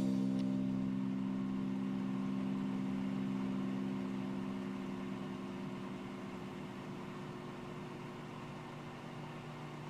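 Microwave oven running with a steady low electrical hum, fading slowly.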